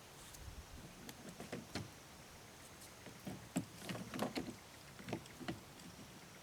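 Irregular knocks and clunks against a canoe's hull, about a dozen over a few seconds, loudest in the middle.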